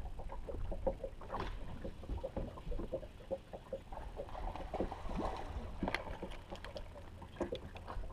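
Water lapping against a small fishing boat's hull, with irregular light knocks and ticks over a low rumble.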